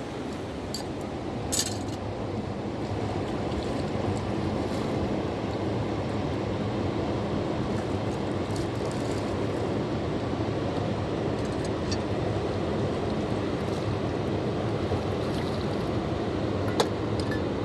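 Fast-flowing mountain river rushing steadily, with a sharp click about a second and a half in and another near the end.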